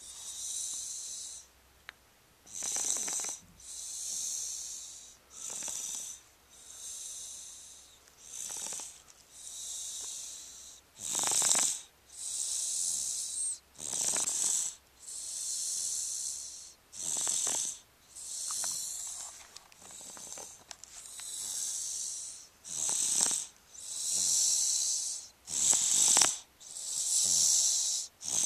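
A sleeping baby snoring in a steady rhythm. A short rasping snore comes about every three seconds, alternating with a longer airy hiss of breath.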